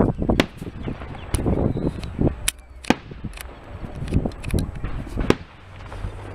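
Fireworks going off: a dozen or so sharp cracks and pops at irregular intervals, with low rumbling between them.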